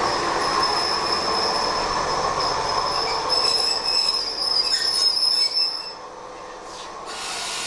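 Kobe Electric Railway train heard from inside the car, its wheels squealing in a steady high tone over the running noise. The noise drops off about six seconds in, followed by a brief hiss.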